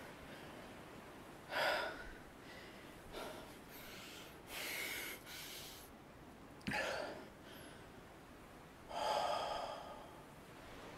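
A man's heavy, ragged breathing: five separate gasps and breaths a second or two apart, the ones near the start, around the middle and near the end the strongest.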